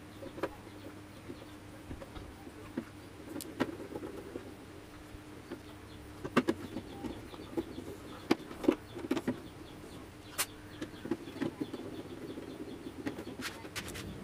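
Hand screwdriver driving small screws through a plastic switch plate into a tennis stringing machine's body: scattered clicks and scrapes of the tool in the screw heads, over a faint steady hum.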